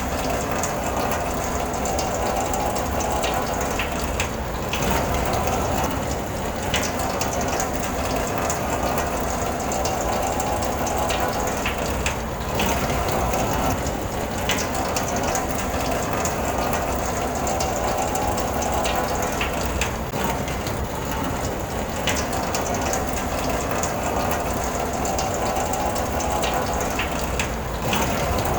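Rain falling on a car's roof and windows, heard from inside the car: a steady, dense patter of drops with an occasional louder drip.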